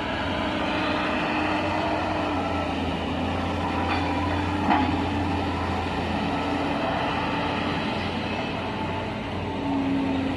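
Heavy construction machinery running steadily, a deep engine drone with a brief knock about four and a half seconds in.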